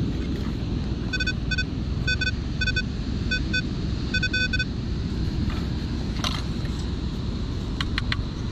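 Metal detector sounding a run of short, evenly pitched beeps, mostly in pairs, for about three and a half seconds as it passes over a metal target. A steady low rumble runs underneath, and a few sharp clicks come near the end.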